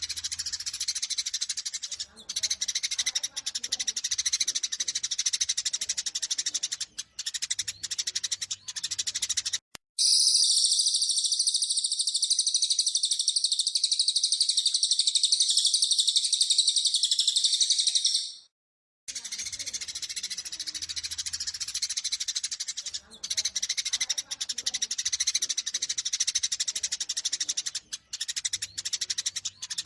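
Eurasian tree sparrows giving dense, rapid chirping fighting calls. About ten seconds in, the track cuts abruptly to a louder, unbroken high-pitched chatter. That chatter fades out after about eight seconds, and after a brief silence the chirping resumes.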